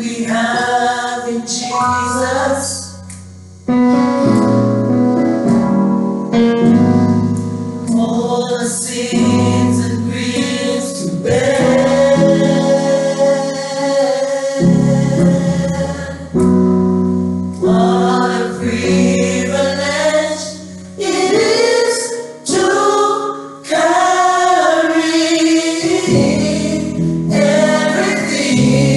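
Gospel praise team rehearsing a song, several voices singing together over sustained low instrumental notes. The music fades briefly about three seconds in, then starts again.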